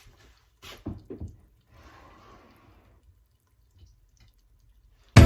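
A few faint knocks and light clatter about a second in, then a soft hiss for a second or so; loud background music starts suddenly right at the end.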